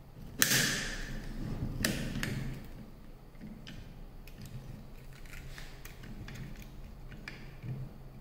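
Handling sounds from a Makita 9032 belt file sander as a narrow sanding belt is fitted onto its arm. Two sharp clicks come about a second and a half apart, each followed by a short rustle, then light ticks and taps from the hands on the tool.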